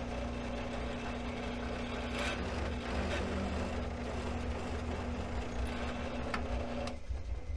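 Drill press running steadily while a plug-cutting bit bores 3/8-inch plugs out of a wooden board. The motor's hum drops away about seven seconds in.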